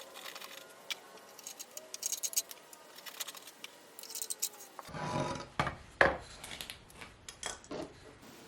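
Handling sounds of a glue repair on a wooden recliner base: light clicking and rattling at first, then a louder run of knocks and rubbing against the wood from about five seconds in, the sharpest knock about a second later.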